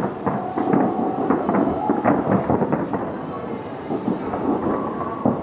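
Aerial fireworks shells bursting in rapid succession, a dense, continuous rumble of booms and crackles with no pause.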